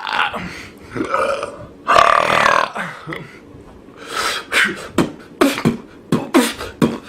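A person burping loudly over and over: a few drawn-out burps in the first three seconds, then a quick run of short, sharp burps about two or three a second from just past halfway.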